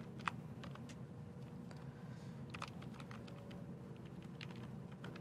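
Typing on a computer keyboard: faint, irregular keystrokes, with one sharper key click about a third of a second in.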